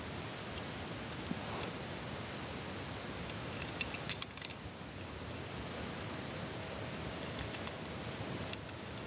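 Light clicking and rattling from a toy train semaphore signal being handled and turned, in two short clusters, over a steady hiss.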